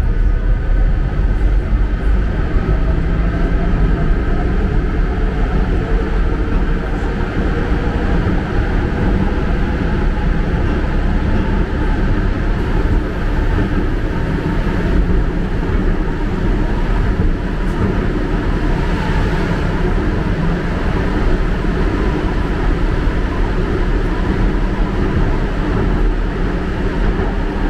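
Budapest M1 Millennium Underground train running between stations, heard from inside the car: a steady, loud rumble of wheels on track with faint whining tones above it.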